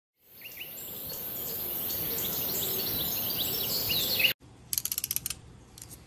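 Birds chirping over a steady high hiss of outdoor ambience, cut off abruptly about four seconds in. Then comes a quick run of small sharp clicks, about half a second long.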